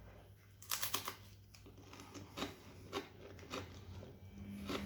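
A person biting into and chewing food: a quick cluster of crisp clicks about three-quarters of a second in, then scattered soft clicks of chewing at irregular intervals.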